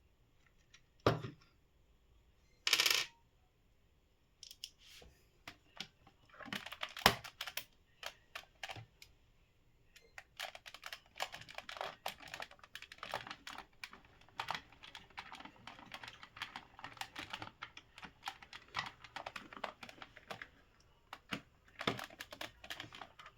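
Disassembling a mosquito racket's plastic housing: a sharp knock, a short scrape, then a long run of small, fast, irregular plastic clicks and rattles as the casing and screws are worked.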